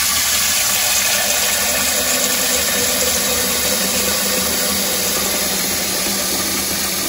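Kitchen faucet running a steady stream of water into a stainless steel pot in a stainless sink, filling it, with a constant rushing splash.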